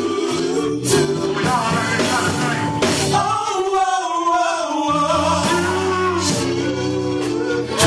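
A gospel song with a band and singing voices and a steady drum beat; the bass drops out for a moment just past the middle.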